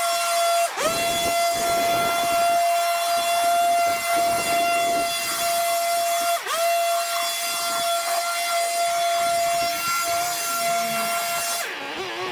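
Small two-stroke engine of a handheld garden power tool running at high revs with a steady whine. Its pitch dips and recovers briefly twice, then drops further for about half a second near the end before climbing back.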